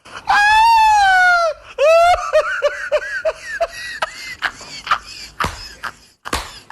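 A woman's high-pitched squeal, then a run of quick laughs, about five a second, trailing off into breathy gasps of laughter.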